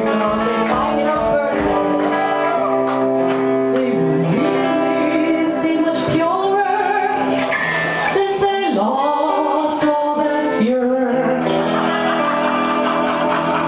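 Live band music: electric guitar with a violin line, with notes that slide up and down over regular percussive hits.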